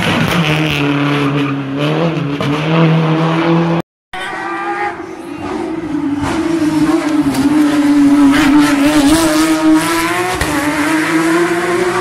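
Rally car engines at a tight street corner, revving through the turn. The sound drops out briefly about four seconds in, then a second car's engine comes in, holds a fairly steady note and rises near the end.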